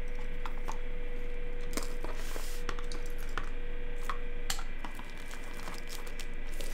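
Tablet accessories and their plastic wrapping being handled: crinkling and rustling with scattered light clicks and taps, over a steady faint hum.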